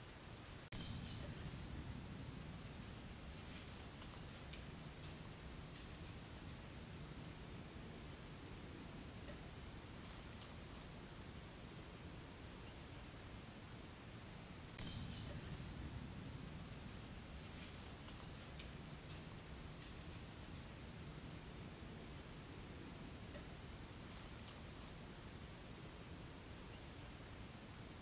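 Forest ambience: short, high chirping calls repeating irregularly about once or twice a second over a faint, steady low rush.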